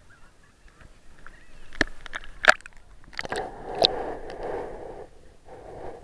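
Seawater splashing and sloshing against a waterproof action camera at the surface, with several sharp clicks and knocks, then a muffled wash as the camera goes under the water.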